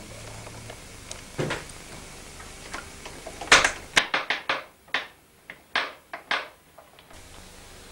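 Clown automaton's mechanism clicking and knocking as it runs, lifting its arm to present a bunch of flowers. There are a couple of separate knocks, the loudest about three and a half seconds in, then a quick irregular run of about ten clicks.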